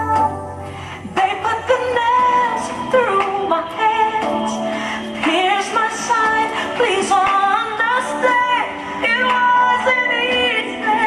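Music with a woman singing a melody over instrumental backing.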